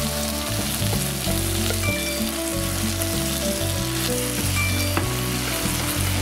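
Taro and bacon sizzling in a frying pan as they are stirred with chopsticks, with a steady frying hiss. Background music with a bass line plays under it.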